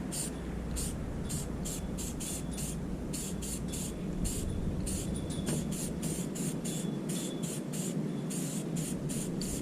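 Aerosol spray paint can sprayed in short, quick hissing bursts, about three a second with a few brief pauses, laying on a first coat of paint.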